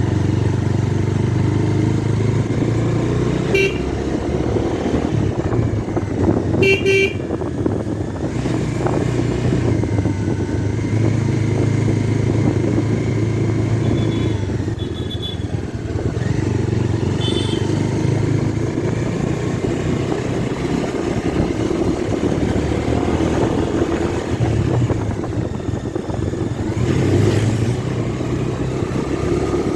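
Bajaj Dominar 250 motorcycle's single-cylinder engine running steadily under way, with road and wind noise. Short horn toots sound about 4 and 7 seconds in, and fainter ones around 15 and 17 seconds.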